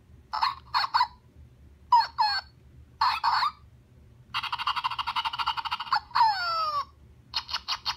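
Zhu Zhu Pets Siberian Husky toy playing its silly sound effects through its small speaker: several short yappy bursts, a longer buzzy noise about halfway through that ends in falling, swooping glides, then a quick run of beeps near the end.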